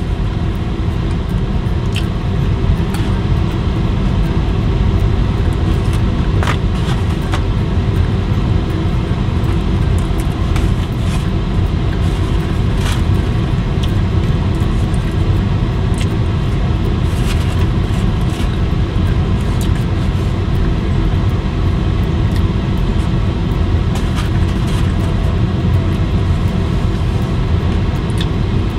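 Steady low rumble of a car cabin, from the running car or its ventilation, with a few faint clicks and crunches as French fries are picked from a foam container and eaten.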